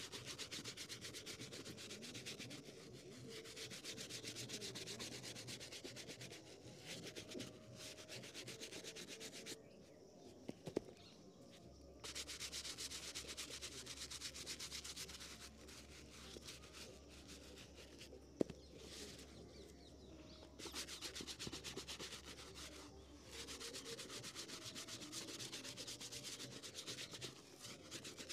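Rapid back-and-forth rubbing on a shoe's surface, in three long runs of quick strokes broken by short pauses, with a couple of light ticks.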